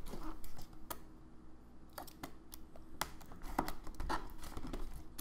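Scattered light clicks, taps and rustles of a cardboard toy box and its plastic packaging being handled as a doll is worked loose from it.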